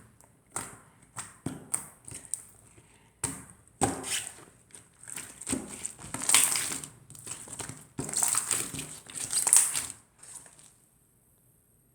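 Clear, chewy slime being squeezed and kneaded by hand, making sticky crackling and popping noises in bursts. These are loudest about six seconds in and again from eight to ten seconds, then it goes nearly quiet for the last second or so.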